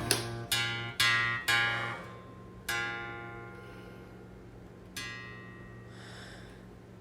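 Background music: acoustic guitar chords struck about twice a second, then slowing to two single chords left to ring out and fade.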